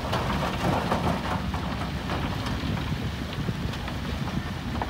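Dump truck's diesel engine running while its raised bed tips out a load of rock and dirt; stones rattle and clatter as the load slides out the tailgate.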